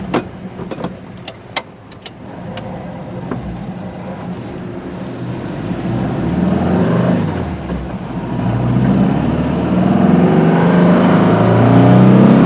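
Air-cooled VW flat-four, a 2275 cc engine with FK8 cam and Weber IDF carburettors breathing through a merge exhaust, heard from inside the Beetle's cabin as the car pulls away. A few sharp clicks come in the first two seconds, then the revs climb, drop briefly about eight seconds in, and climb again, loudest near the end.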